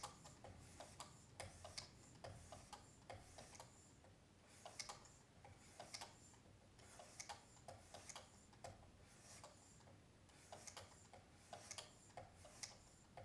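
Faint, repeated strokes of a 30-micron lapping film on a Work Sharp Precision Adjust hone drawn down a knife edge. Each stroke is a short tick or light scrape, coming irregularly, often one or two a second: the coarsest film step removing steel on the way to a mirror edge.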